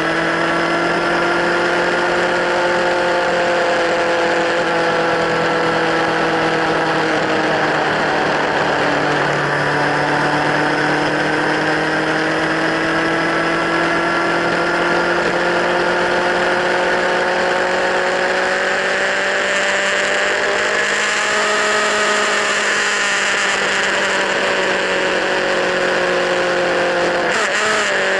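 Kawasaki Z1000 inline-four engine running through LeoVince slip-on exhausts, held at a steady mid-range speed, its pitch rising and falling slowly. Near the end the note breaks briefly and then climbs again.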